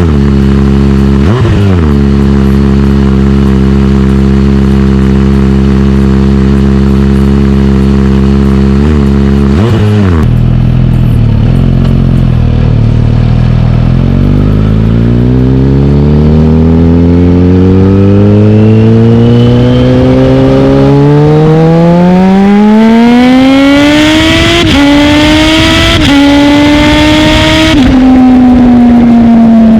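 Kawasaki Z H2's supercharged inline-four running through a Bodis aftermarket exhaust. It idles with a few short throttle blips, then pulls away and accelerates, the engine note rising steadily with sharp drops at each upshift, and settles to a steady cruise near the end.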